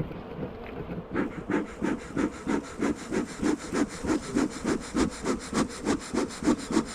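Rapid, even back-and-forth scraping strokes, about four or five a second, like sawing, starting about a second in.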